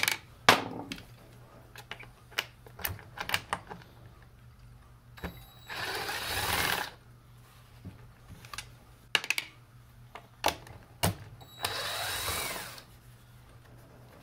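Cordless impact driver run in two short bursts of about a second each, about six seconds in and again near twelve seconds, each starting with a brief motor whine, as it works the screws of a chainsaw's handle housing. Between the runs there are light clicks and taps of the tool and parts being handled.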